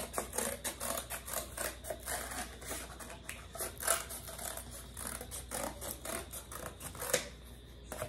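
Scissors cutting through cardboard: a steady run of short snips, several a second.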